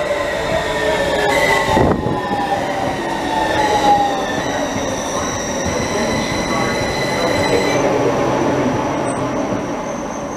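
Driverless Copenhagen Metro train passing at close range on its rails. High whining tones slide down in pitch over the first few seconds while others hold steady, with a single sharp knock about two seconds in. The sound eases off near the end as the rear of the train goes by.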